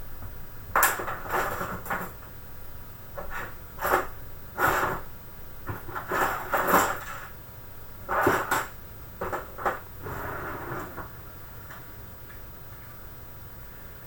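Metallic clicks and clatter of a computer drive bracket and its small screws being handled, in a dozen or so irregular knocks, then only a steady low hum for the last few seconds.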